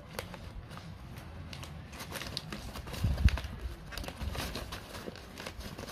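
Brown paper bag crinkling and rustling in the hands as it is held and gripped, in irregular crackles, with a low handling thump about three seconds in.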